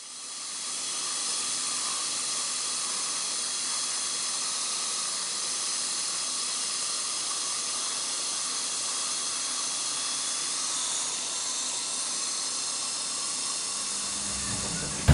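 High-speed dental drill running steadily with a hissing whine as it drills out a cavity in a decayed tooth. The sound builds up over the first second and cuts off abruptly at the end.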